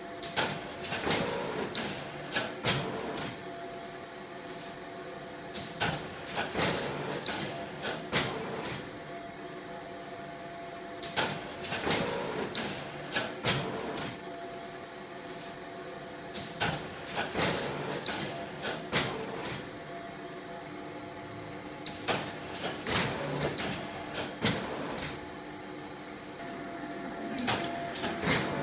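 Semi-automatic flatbed screen-printing press cycling: bursts of clanks and clicks with short hisses as the screen frame drops and the squeegee carriage sweeps across, repeating about every five and a half seconds over a steady motor hum.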